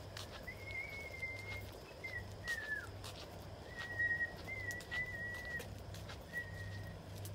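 A series of clear, high whistled notes, most held steady for half a second to a second and one sliding down, over footsteps on a concrete path.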